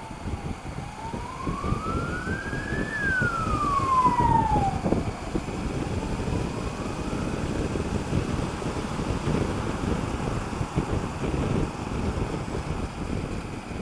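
An emergency-vehicle siren wailing, its pitch slowly rising and falling. It is loudest over the first five seconds, then a fainter rise follows. Under it runs the steady wind and road noise of a motorcycle riding in traffic.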